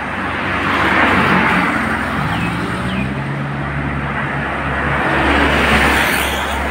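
Road traffic passing close by: vehicles swishing past, loudest about a second in and again near the end, with a large bus's engine rumbling low as it goes by in the last seconds.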